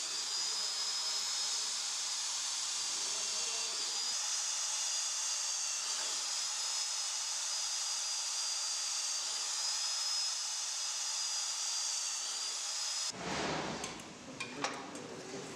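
Handheld electric drill running steadily as its bit cuts a series of holes through a thin steel plate: a steady high motor whine over a hiss. About 13 seconds in it stops, and a few sharp clicks and knocks follow.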